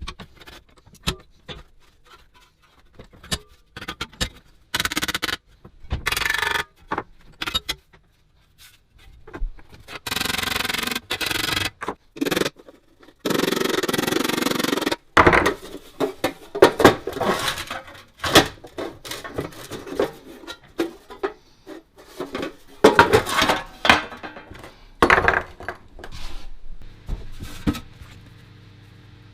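Metal tools and parts being handled: irregular clinks and knocks, with several bursts of scraping and rubbing lasting a second or two.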